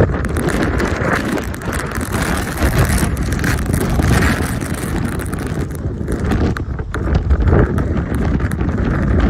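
Storm-force wind blowing across the microphone: a heavy low rumble with a rushing noise over it that swells and eases in gusts.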